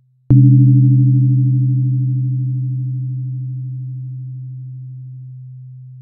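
A 128 Hz tuning fork struck a moment in, a sharp strike followed by a low pure hum that fades slowly. Higher ringing overtones die away over the first few seconds.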